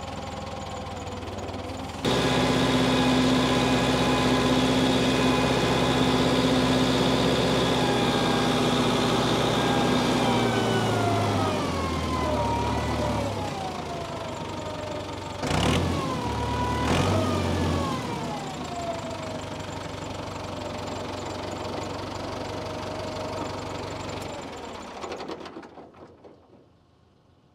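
Tiger Tractor's engine running, throttled up sharply about two seconds in and held steady. Its speed then falls away, with two sharp knocks in the middle. It runs lower afterwards, and the sound dies away near the end.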